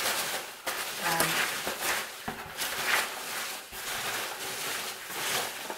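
Rustling and irregular handling knocks of packing material in a cardboard box, with a brief murmur of voice about a second in.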